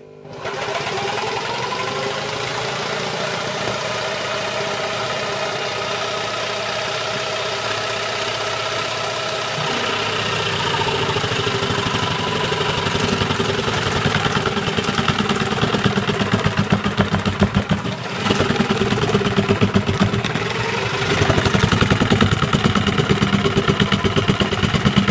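Electric jigsaw mounted under a table starting up and running, its motor winding up in pitch and then cutting through a wooden board with a rapid buzzing chatter. It gets louder about ten seconds in and again near the end as the speed setting is turned up.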